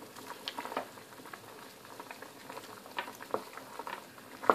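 Chicken and vegetables in stock bubbling at a simmer in a pan, with scattered small pops, as a wooden spoon stirs through them; one sharper knock near the end.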